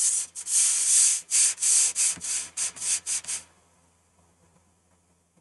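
A quick run of about a dozen short, scratchy rubbing noises that stop after about three and a half seconds.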